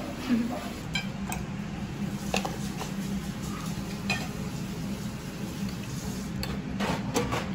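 Kitchen utensils clinking against pots and dishes, a few separate clinks with a quick run of them near the end, over a steady low hum.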